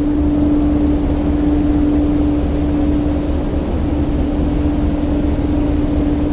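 Ferry's diesel engines idling at the pier: a steady low rumble under a constant hum.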